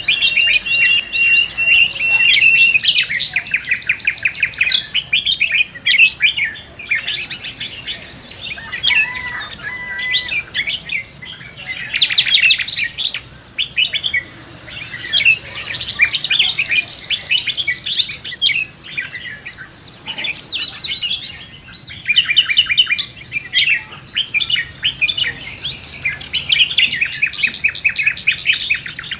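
Several songbirds singing and calling at once in a morning chorus: a held whistled note at the start, rapid trills of evenly repeated notes that come and go, and many short chirps overlapping.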